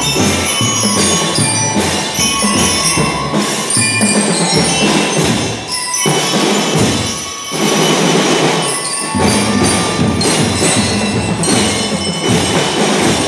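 Drum and lyre band playing: metal bell lyres ring out a melody over marching drums. The bass drums drop out for a few seconds midway, then come back in.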